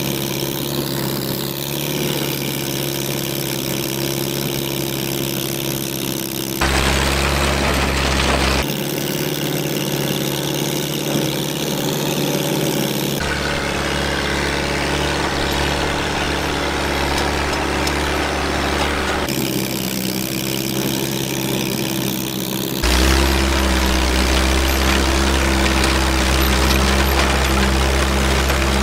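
Fiat 352C Montagna crawler tractor's four-cylinder engine running steadily while the tractor works a rear rotary tiller through dry soil. The tone jumps abruptly several times.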